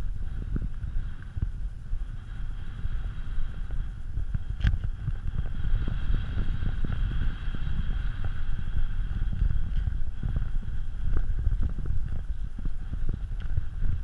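Strong gusty wind buffeting the microphone: a low, uneven rumble that surges and eases with the gusts, with a faint steady hum underneath and a single sharp click about five seconds in.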